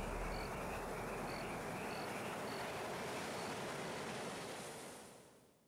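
Nature-ambience sound effect: a steady hiss with faint, short, high insect-like chirps repeating irregularly about once a second. It fades out over the last second.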